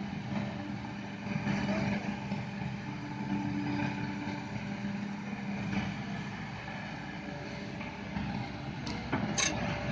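Kobelco SK200 excavator's diesel engine running steadily, with a brief higher whine a few seconds in and a sharp knock near the end.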